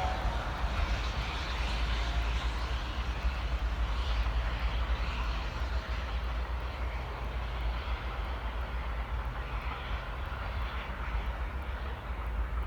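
Steady rumble of steam locomotive L-3108 running with its suburban train, the level fluttering throughout, with a deep low rumble underneath.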